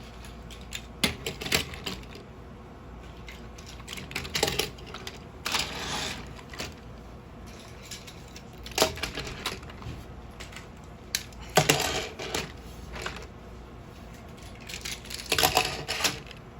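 Plastic toy train engines being handled and set down on a hard surface: scattered clicks and clatters, with a few short bursts of rustling.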